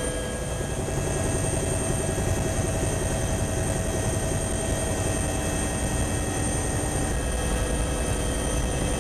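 Aircraft noise heard from inside the cabin: a steady engine rumble with several steady whining tones above it.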